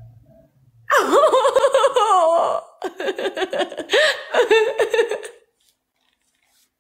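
A woman laughing hard in a high voice, in a long run of laughs that starts about a second in and stops about five seconds in.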